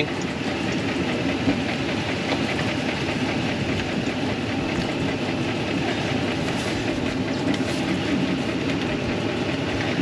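Truck engine idling steadily, a low even rumble.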